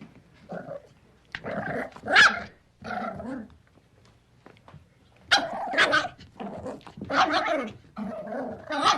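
Puppy barking in a string of short, pitched barks and yaps, with a pause of about a second and a half near the middle followed by a quicker run of barks.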